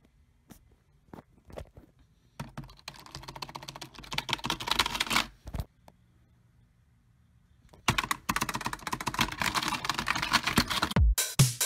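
Computer keyboard typing: a few scattered key clicks, then about three seconds of fast typing, a pause, and another burst of rapid keystrokes. Near the end an electronic trap beat with heavy kick drums starts.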